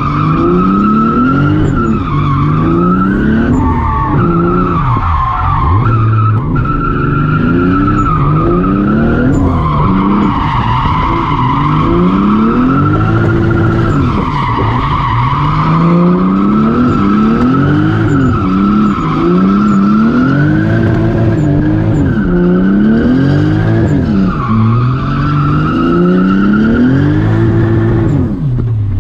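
Twin-turbo 2JZ inline-six in a Nissan 240SX S13, heard from inside the cabin, revving up and down over and over as the car drifts, with the tyres squealing almost without a break. Near the end the squeal stops and the revs drop away.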